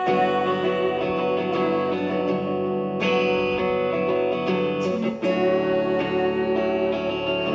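Live band music: an instrumental passage led by strummed guitars, with no singing.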